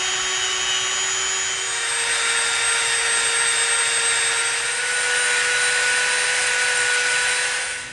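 Dremel rotary tool with a sanding drum running at speed against a small EVA foam disc, sanding its edge round: a steady high whine over a hiss of sanding, cutting off at the end.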